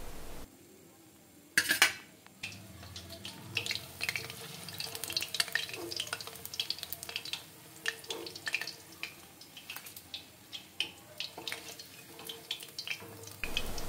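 Marinated rohu fish pieces frying in hot oil in a kadhai: a soft sizzle with many small scattered clicks and scrapes of a utensil against the pan, after one sharp knock about one and a half seconds in.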